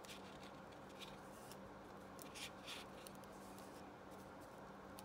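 Faint rustling and light scraping of the stiff pages of a small accordion-fold book as they are unfolded and turned by hand, in several short strokes, loudest about two and a half seconds in, over a steady low hum.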